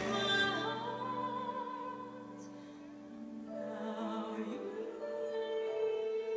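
Slow, quiet music with long held notes that glide from one pitch to the next. It dips in level about halfway through and swells again near the end.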